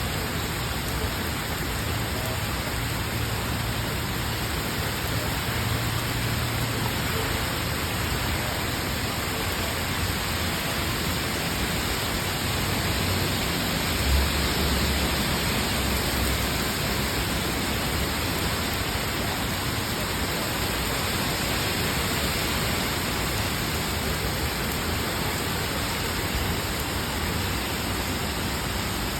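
Steady heavy rain from a tropical storm, an even hiss throughout with a low rumble underneath and a brief low bump about halfway through.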